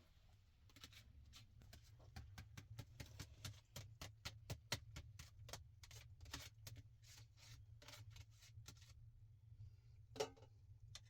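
A faint, irregular run of short, sharp clicks or snips, several a second, which stops about nine seconds in, over a steady low hum. A brief voice sound follows about a second later.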